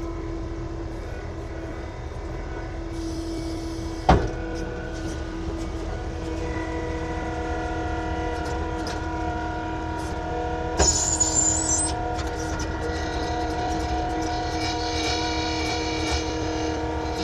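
Engine of an earthmoving machine running steadily while it works, with a sharp clunk about four seconds in and another clunk with a brief high whine near eleven seconds.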